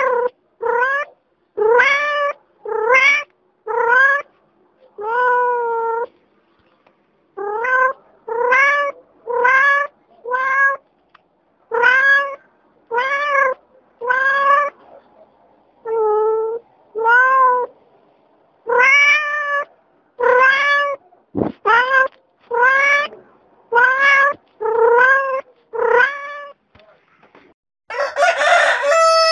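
A cat meowing again and again, about two dozen short meows that each rise and fall in pitch, roughly one a second with a few short pauses. A harsh noisy burst follows near the end.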